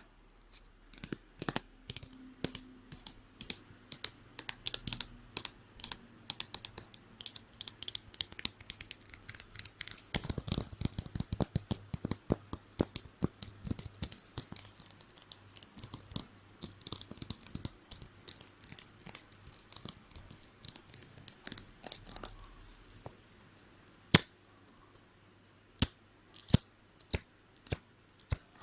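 Close-miked tapping and scratching of school supplies: quick irregular clicks with light scratching, densest through the middle, then a few single sharp taps near the end.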